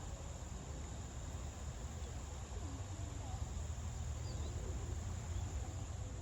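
A steady, high-pitched insect chorus, such as crickets, over a constant low rumble.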